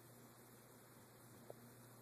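Near silence in a pause between snores: a faint steady hiss and low hum, with one tiny short squeak about one and a half seconds in.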